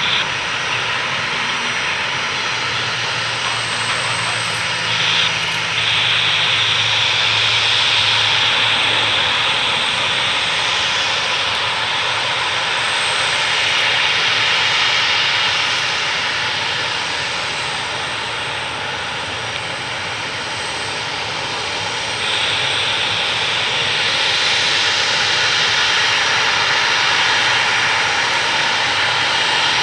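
Boeing 737-300 jet airliner's CFM56-3 turbofan engines running with a steady loud hissing whine. The sound swells about six seconds in and again near twenty-two seconds in.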